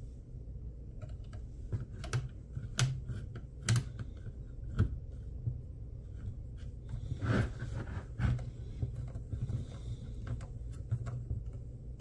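Irregular small clicks and taps, roughly a second apart, as a precision screwdriver drives screws back into a PC fan's plastic frame and the parts are handled.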